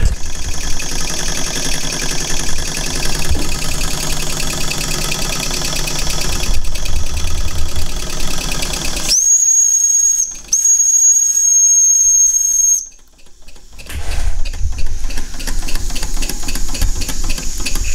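Small live-steam model steam roller running, its little steam engine chuffing rapidly with a hiss of steam. About nine seconds in, its steam whistle gives a steady shrill note for about three and a half seconds, broken once briefly. The engine sound then drops away for about a second before picking up again.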